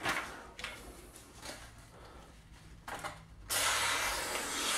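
A sheet of paper is handled quietly, then the Buck Selkirk 863's flat-ground blade slices through it in one steady cut lasting about a second near the end, showing that the factory edge is razor sharp.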